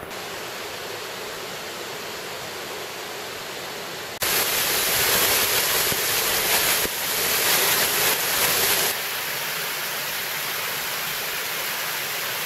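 Water rushing and splashing down a rocky cascade: a steady rush that turns louder and brighter about four seconds in and settles back down at about nine seconds.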